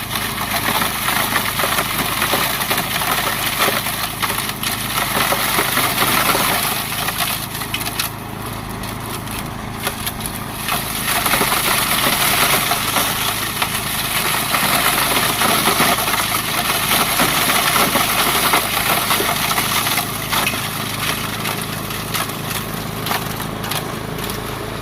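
Toro 828 snowblower running: a steady engine drone under a loud rushing noise, dipping slightly about eight seconds in.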